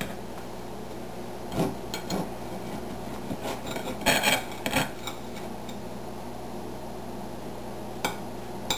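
Kitchen knife cutting through a coffee cake, scraping and clicking against the plate beneath: a few short scrapes, the loudest about four seconds in, and a single click near the end.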